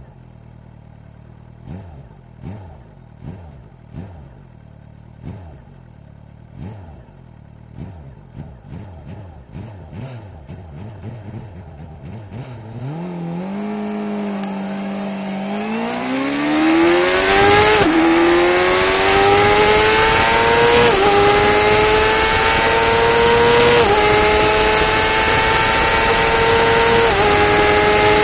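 Onboard sound of a 2006 Suzuki GSX-R750's inline-four engine on an acceleration run. First it runs low, with a string of thumps coming faster and faster. From about halfway it revs up hard at full throttle, the pitch dropping back briefly at four upshifts, each gear pulling up more slowly, as wind noise grows loud.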